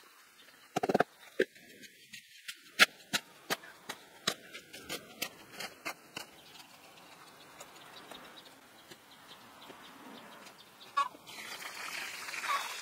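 Powdered slaked lime dumped from a bucket into a wheelbarrow with a short rush, followed by a series of sharp knocks, about two a second. Near the end, water from a hose starts pouring onto the lime.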